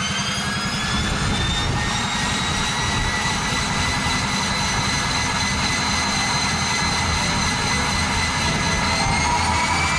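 Cessna Caravan's single turboprop engine spooling up on the ground: a high turbine whine rises in pitch and levels off over a low rumble, then starts rising again near the end.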